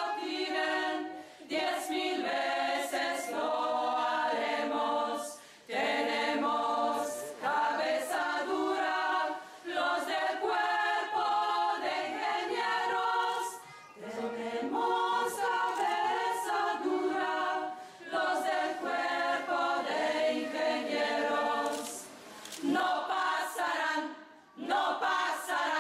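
A choir of mostly women's voices singing a song together in phrases, with a few brief pauses between them.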